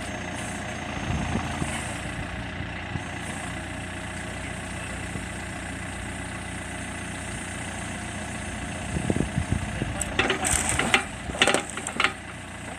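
Backhoe loader's diesel engine running steadily, surging briefly twice. A quick series of metallic clanks and knocks comes near the end.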